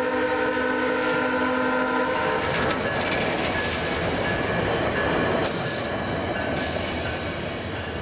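VIA Rail passenger train passing: the locomotive's horn sounds a steady multi-note chord that stops about two seconds in, over the rumble and clickety-clack of the stainless-steel coaches' wheels on the rails. A few short hissing bursts follow, and the rumble fades as the last coach goes by.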